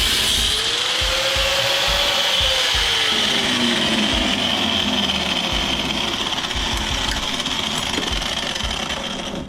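Power tool cutting through a steel bolt on an electric motor's housing: a loud, steady grinding noise with a high hiss, its whine rising and then sagging as the cut loads it, stopping abruptly near the end.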